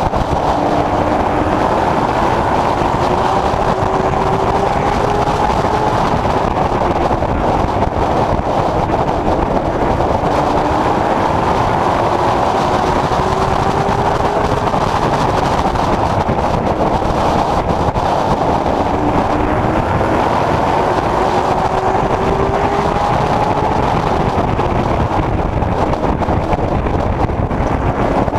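Late Model Stock race car's V8 engine at racing speed, heard from inside the car over heavy wind and road noise. The engine pitch climbs for several seconds and then drops back, about every nine seconds, as the car accelerates down each straight and lifts for the turns.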